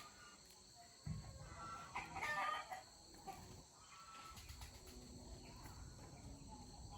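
Farmyard chickens calling faintly, with a rooster crowing; the strongest call comes about two seconds in.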